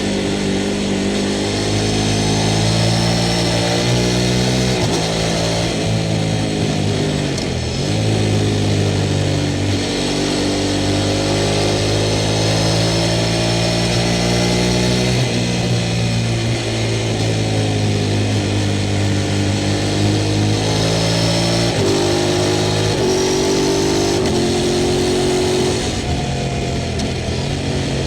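Sport motorcycle engine under way, its pitch climbing through the gears with a clean break at each shift, then dropping back as it slows, several times over.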